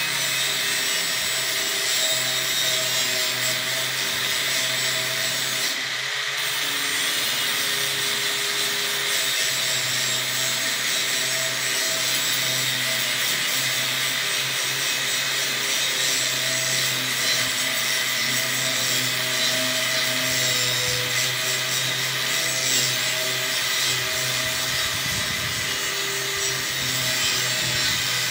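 Angle grinder running continuously with an abrasive head against steel, scouring rust off the metal. The scraping stays loud and steady throughout, over a faint motor whine.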